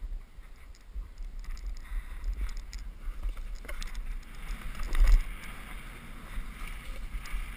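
Snowboard sliding over snow with a steady hiss, wind rumbling on the microphone, and a single loud thump about five seconds in.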